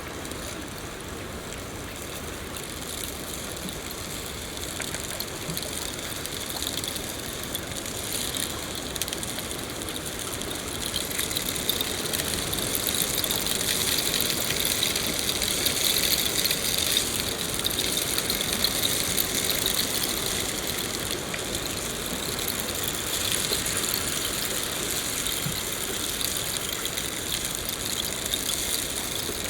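Steady rain falling in a forest: a dense hiss of drops with fine crackling patter. It grows louder about a third of the way in.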